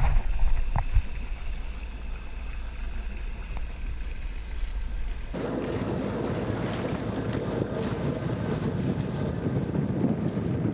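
Wind buffeting the microphone and water rushing past the hull of a sailboat under way, with a few knocks in the first second. About five seconds in the sound changes abruptly to a fuller, louder rush of wind and water.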